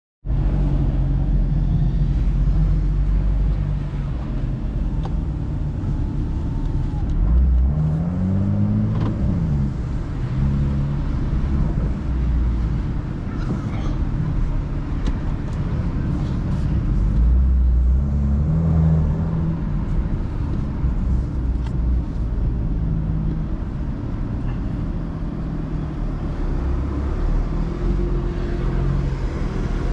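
BMW M2 F87's turbocharged straight-six running on the move, heard from inside the car, with the revs climbing and dropping once about eight seconds in and shifting again around the middle.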